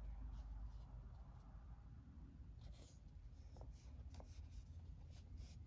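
Faint rustling and a few light taps of cardboard game board tiles being handled, over a low steady room hum.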